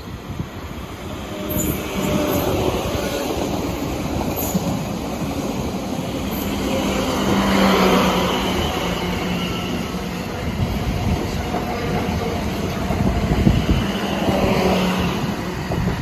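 Passenger train running past on the track. The noise builds over the first couple of seconds and is loudest about eight seconds in, with a steady low hum and a few brief high wheel squeals.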